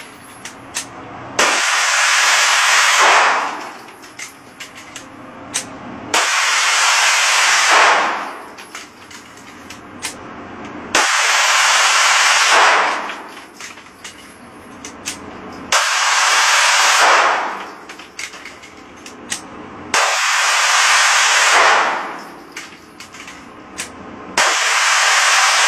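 Glock 19 pistol fitted with an auto sear, firing full-auto bursts at a cyclic rate of about 1,200 rounds a minute, with the shots running together in the range's echo. There are six bursts of about two seconds each, one roughly every four to five seconds, and a few single sharp cracks in between.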